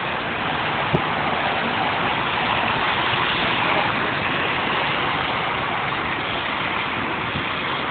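Steady road traffic noise from passing cars, with a brief click about a second in.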